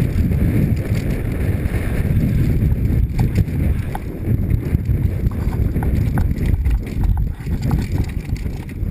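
Mountain bike descending a rough dirt singletrack at speed: a heavy, uneven rumble of wind and tyres on the helmet camera's microphone, with the bike rattling and clattering over bumps and roots in many short knocks.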